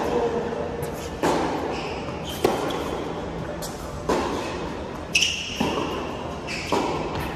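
Tennis ball struck by rackets and bouncing on the hard court during a rally, about seven sharp hits roughly a second apart, echoing in a large indoor hall, with a few brief high squeaks between hits.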